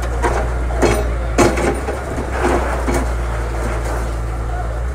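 A Volvo wheeled excavator's diesel engine runs with a steady low drone while its bucket tears at a house wall. Several sharp knocks and clatters of breaking and falling brick and concrete come through in the first three seconds.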